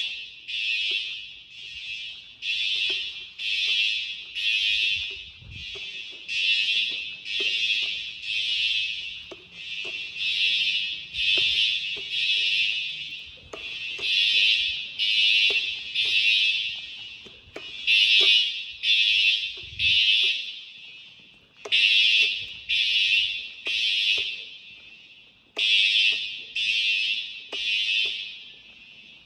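Siemens fire alarm horn sounding in a steady train of short pulses, roughly one a second, bunched in groups of about three with brief pauses between them: the evacuation signal of an activated fire alarm system.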